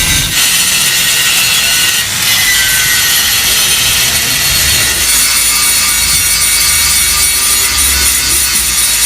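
Angle grinder cutting into the steel body of a Yamaha RX-King exhaust muffler to hollow it out: a loud, steady, high-pitched metal-on-disc rasp whose whine dips slightly under load about two seconds in.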